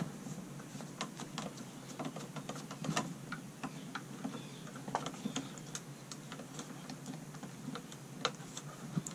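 Irregular small clicks and taps of a screwdriver working a light switch's terminal screw, tightening a pigtail wire under it.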